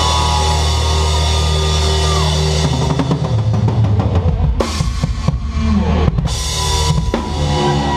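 Live rock band ending a song: a chord rings out over steady drumming, then a run of drum fills with two loud crash-cymbal hits about a second and a half apart, and the band's chord rings again near the end.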